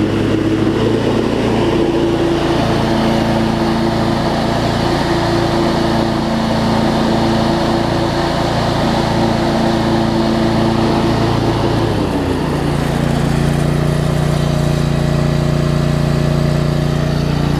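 Craftsman LT1750 riding mower engine running steadily with the electric PTO engaged. About twelve seconds in, its note changes to a lower, steadier tone. The trouble is a stretched, loose deck belt without enough tension to spin the deck, not the PTO clutch.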